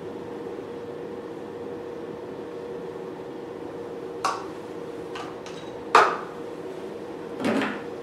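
Steady background hum, with three short knocks and clatters in the second half, the loudest about six seconds in: a plastic gel bowl and spatula being set down and an ultrasonic facial handpiece lifted from its holder on the beauty machine.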